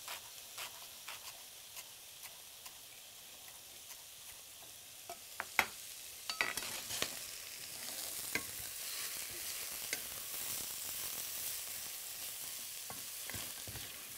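Light, evenly spaced taps about two a second, then a few sharp clatters of a utensil against a pan about five to seven seconds in, after which hot oil sizzles steadily as food fries and is stirred.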